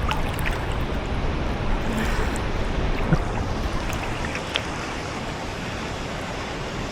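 Steady rush of waterfall water, with a few light, short splashes close by.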